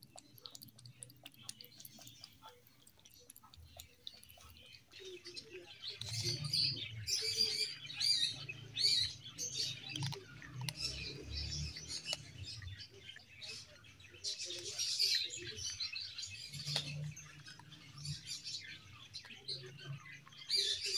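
A kitten lapping milk with faint quick ticks. About five seconds in, it switches to crunching and chewing dry kibble close up: an irregular run of loud, crackly crunches.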